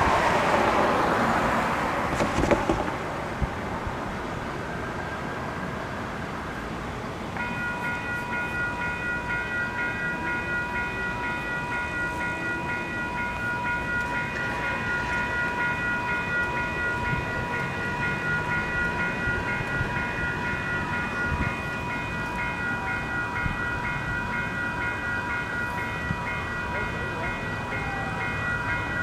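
A vehicle rushes past in the first few seconds. About seven seconds in, a railway level-crossing warning bell starts ringing with an even, quick repeated ring, the crossing signals going active for an approaching train.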